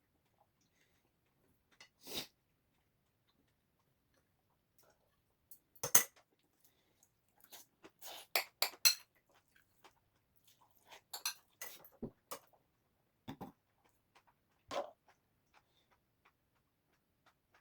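Cutlery clinking against a dish during a meal: scattered sharp clinks and taps, with a quick run of them about eight to nine seconds in.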